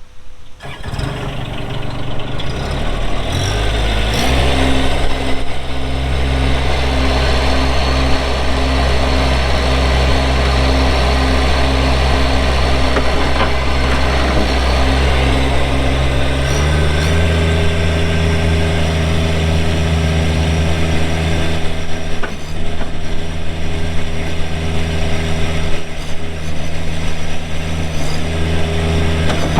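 Kubota diesel engine of a Bobcat MT85 stand-on skid steer starting up and settling into a steady idle within the first few seconds. About halfway through, the throttle is raised and the engine runs steadily at a higher speed.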